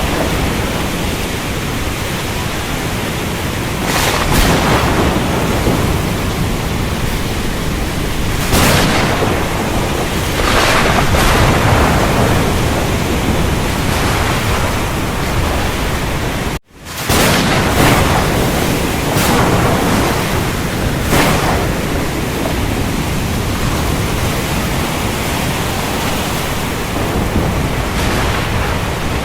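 Thunderstorm: heavy rain as a steady hiss with thunder rumbling beneath it, swelling several times. The sound cuts out for a split second about two-thirds of the way through.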